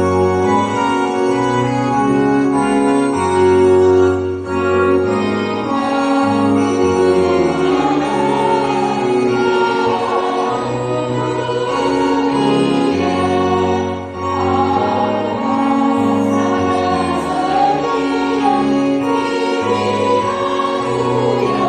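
Two-manual electronic organ playing a hymn with held chords; a choir joins in singing after a few seconds, and the organ continues to accompany it.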